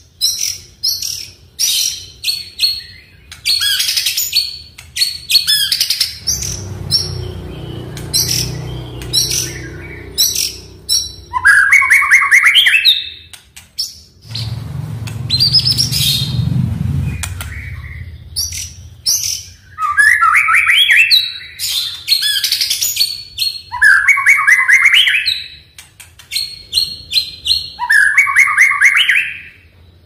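White-rumped shama (murai batu) singing a long, varied song: quick whistled notes and fast chattering trills in phrases with short gaps between them. A low hum runs underneath twice, a few seconds each time.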